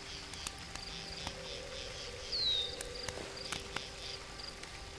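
Night forest ambience: crickets chirping steadily, with scattered sharp crackles of a campfire. A short high whistle falls in pitch a little over two seconds in.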